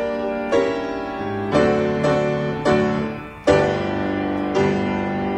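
Background piano music: slow chords struck about once a second, each left to ring and fade, with a held chord near the end.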